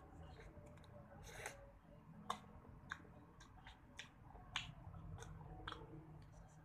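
Close-miked mouth sounds of eating an ice cream bar: about seven sharp, wet clicks and smacks at uneven intervals over a faint low background.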